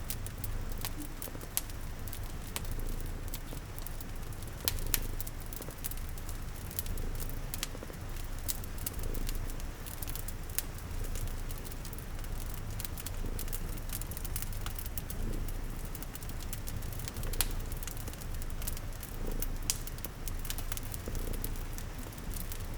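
Layered ambience of a cat's steady low purr under a crackling wood fire, with irregular sharp snaps and pops, and a soft even patter of rain.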